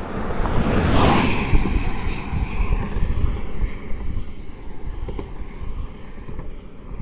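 Wind gusting and buffeting the microphone with a deep irregular rumble. A strong gust swells about a second in and then slowly eases.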